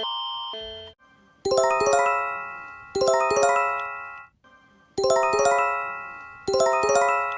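Electronic alert chime: a quick run of bell-like notes that rings out and fades, sounded four times in two pairs about a second and a half apart. Before it, a held electronic alarm tone fades out in the first second.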